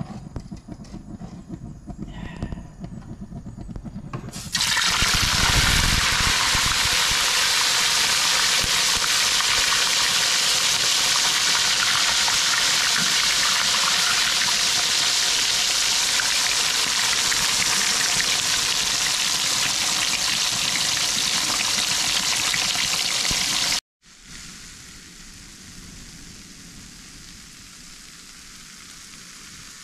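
Cleaned fish frying in hot cooking oil: a loud sizzle starts suddenly about four seconds in and holds steady. Near the end it breaks off and goes on as a quieter, steady sizzle.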